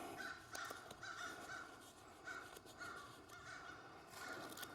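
Faint, repeated harsh bird calls, about once a second, over a quiet background.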